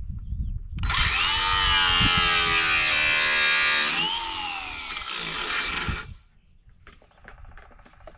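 Cordless drill running under load at the end of an aluminium camper awning pole, its bit giving a high whining squeal that wavers in pitch and dips about four seconds in. It stops about six seconds in.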